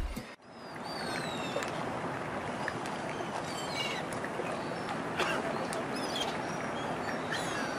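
Music cuts off right at the start, leaving a steady hiss of open water and air with scattered short bird calls, several of them falling in pitch.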